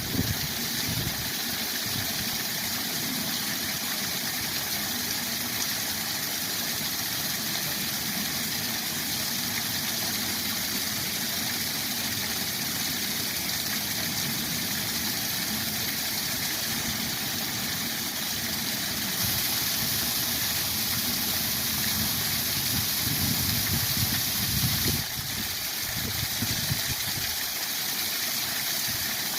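Waterfall rushing steadily, an even wash of falling water that grows a little louder and brighter for a few seconds after the middle.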